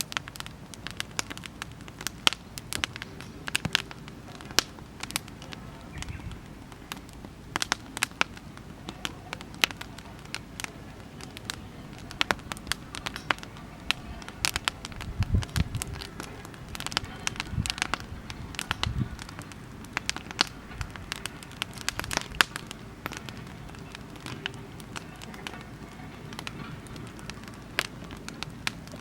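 Oak-log campfire burning and crackling, with irregular sharp pops throughout and a few low thuds about halfway through.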